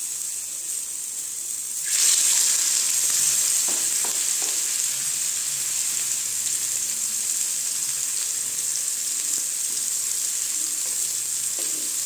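Raw chicken burger patties frying in refined oil in a shallow nonstick pan: a steady sizzle that jumps sharply louder about two seconds in, as a second patty goes into the hot oil, and keeps sizzling. A couple of faint taps come shortly after.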